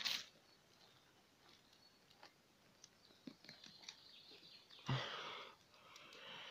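A hand rustling and pulling at dry grass and forest litter: faint small crackles, then a louder rustle with a soft thump about five seconds in and another shorter rustle just after.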